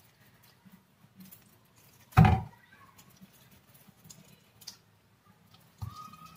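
Faint handling sounds of raw chicken being worked and pulled apart by hand over a wooden cutting board, with one short, loud thump about two seconds in.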